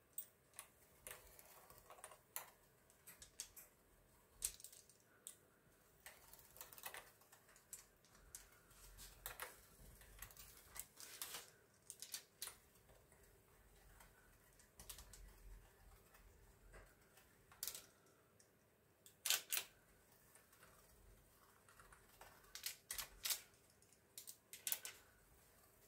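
Fluted pastry wheel rolling through partly baked crispbread dough on a parchment-lined metal baking tray: faint, scattered clicks and light scrapes, with a few sharper ticks later on.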